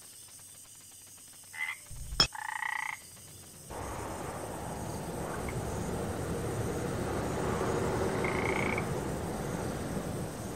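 A chorus of frogs croaking at night, rising in about four seconds in and holding steady, with a brief higher call near the end.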